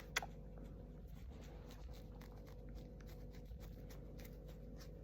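Faint, soft scratching and rustling over a steady low hum, with a sharper click right at the start.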